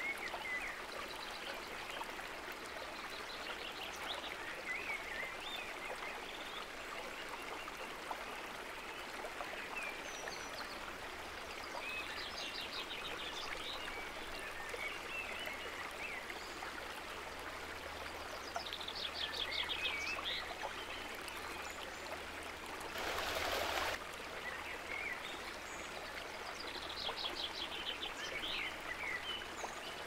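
Steady rushing of a mountain creek, with small birds chirping over it and a rapid trill repeated every several seconds. About three-quarters of the way through comes a brief burst of rustling noise lasting about a second.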